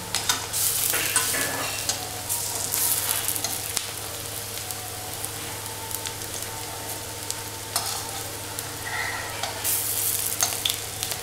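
Lentil fritters sizzling as they deep-fry in hot mustard oil in a steel kadai, with a flat spatula scraping and clicking against the pan as they are turned.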